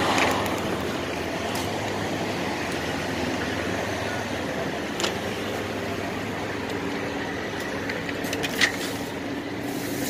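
Steady rumble of an idling diesel truck engine, with a few short sharp knocks; the loudest comes near the end.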